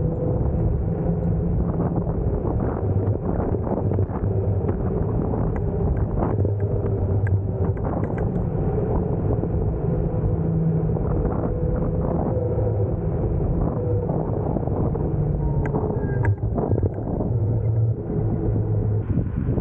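Nanrobot electric scooter being ridden along a street: a steady rumble of tyres and wind on the microphone, with a low steady hum and scattered small knocks throughout.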